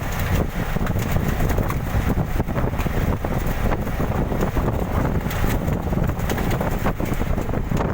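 Wind buffeting the microphone on a small boat in rough sea: a constant low rumble broken by many short knocks and gusts.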